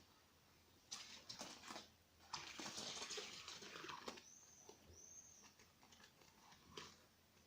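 Light scrabbling and rustling of a Scottish Straight cat at play, heaviest for a second or two in the middle, with two short high squeaks just after.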